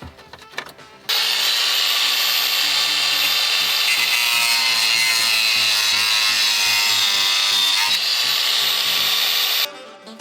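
A power tool grinding for about eight and a half seconds, starting abruptly about a second in and cutting off near the end, with its pitch wavering slightly. Quiet background music plays underneath.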